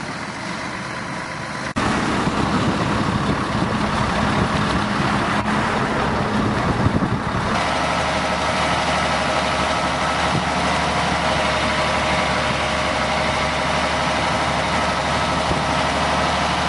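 Diesel engines of Doosan crawler excavators running under load as they dig, a continuous heavy engine drone. It gets louder about two seconds in, and from about halfway through a steady higher engine note rides over it.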